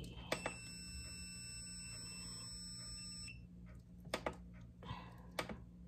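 Hamilton Beach slow cooker's control panel sounding one long, high electronic beep of about three seconds as it is set to cook on high, followed later by a few light clicks.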